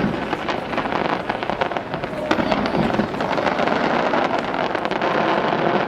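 A fireworks display going off in a dense, continuous barrage of bangs and crackles.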